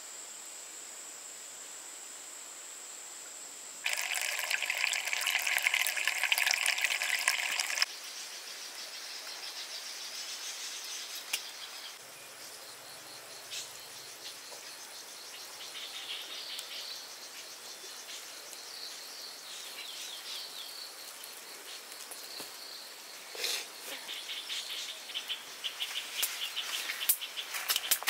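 Outdoor countryside ambience of insects and birds: a steady insect drone that gets louder from about four to eight seconds in, then scattered bird chirps, with a few clicks near the end.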